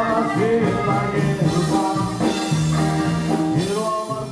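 Live norteño band music: a button accordion carries the melody over a bajo sexto, electric bass and drums.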